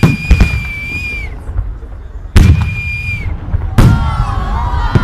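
Fireworks salute shells bursting with four sharp booms in about four seconds. A high, steady whistle follows the first and third bursts for about a second each. Near the end, many voices of a crowd rise under the bursts.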